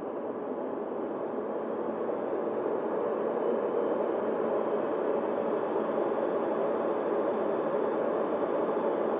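Steady rush of airflow and motor noise picked up by a camera riding on an E-flite Opterra flying wing in flight, growing a little louder about three seconds in.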